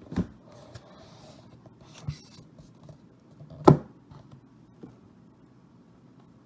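A box being handled and opened by hand: rustling and scraping of packaging with a few sharp knocks, the loudest about three and a half seconds in.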